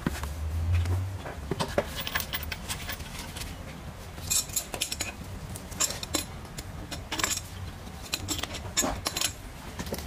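Scattered metallic clinks, clicks and knocks as an electric-scooter hub-motor wheel is handled and mounted onto a steel test-stand axle bracket, with busier clusters of clinking around the middle and near the end.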